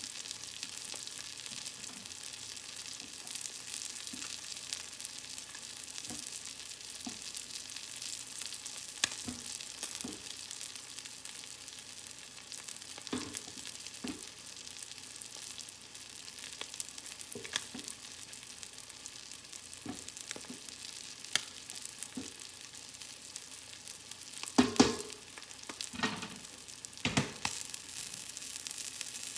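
Tilapia fillet pan-frying in oil in a skillet: a steady sizzle with scattered small crackles. A few louder knocks or pops come near the end.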